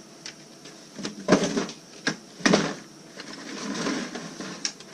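Blow-molded plastic carrying case of a soldering gun kit being popped open: two loud plastic clacks about a second apart, then lighter rattling and handling of the case and its contents.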